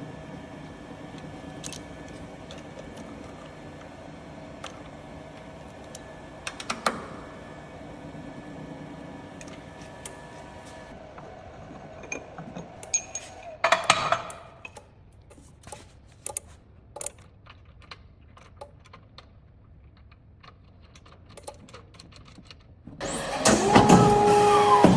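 A hydraulic paper cutter's steady machine hum, which stops about eleven seconds in. Scattered clicks and metal knocks follow, then a loud machine noise with two steady tones starts near the end.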